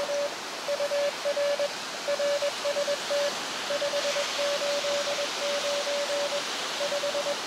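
Morse code (CW) from another station being received on an Elecraft KX2 transceiver: a single steady tone of about 600 Hz keyed on and off in dots and dashes over a constant hiss.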